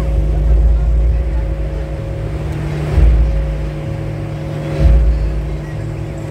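Fireworks going off over a continuous low rumble, with two louder booms about three seconds in and again near five seconds.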